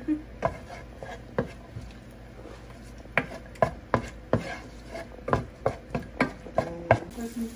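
Wooden spatula knocking and scraping against a nonstick frying pan while stirring chopped garlic and onion in oil: a couple of separate knocks, then a quick run of knocks from about three seconds in, roughly two or three a second.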